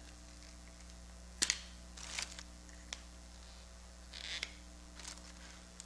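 Plastic end caps being pulled off a replacement water-ionizer filter cartridge: a sharp click about a second and a half in, another near three seconds, and several short scratchy plastic rustles, over a faint steady hum.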